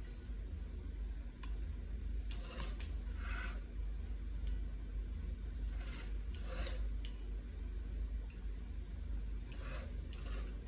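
Short rubbing and scraping noises, about ten of them, scattered over a steady low hum.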